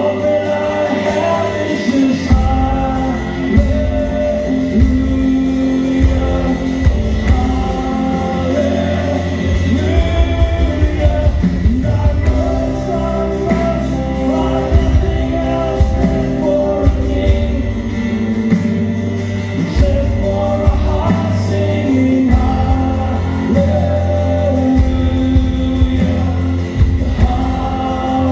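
Christian worship song: singing over a band with a heavy bass and a steady beat.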